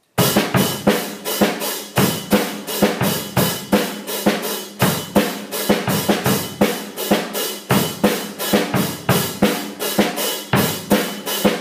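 Drum kit playing a steady beat of bass drum and snare hits, starting abruptly.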